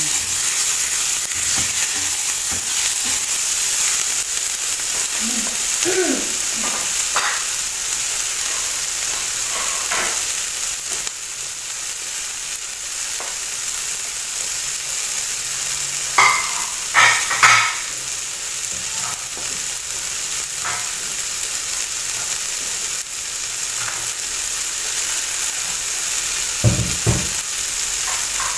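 Chopped vegetables sizzling steadily in a stainless steel frying pan, stirred with a spatula at the start. A few short clicks come about halfway through, and a low knock near the end.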